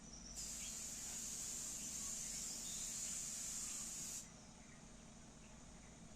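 A steady high-pitched hiss lasting about four seconds, starting and stopping abruptly.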